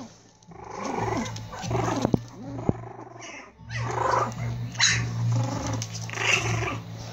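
Four-week-old Prague Ratter puppies growling in play in short, irregular bursts as they tussle, with a few sharp clicks among them.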